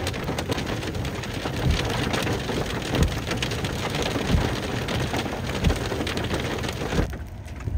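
Hail falling on grass and bare ground: a dense patter with many sharp separate impacts of hailstones. The patter drops off abruptly about seven seconds in.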